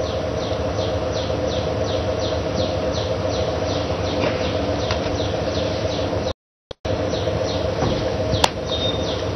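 A bird calling over and over in short, high, falling chirps, about three a second, over a steady low hum. The sound cuts out completely for about half a second past the middle.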